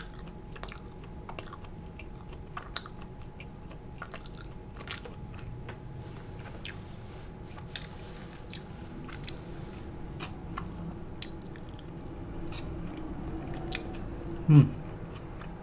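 A person chewing a bite of barbecue chicken pizza: faint wet mouth clicks and smacks throughout. Near the end comes one short falling voice sound from the eater, the loudest moment.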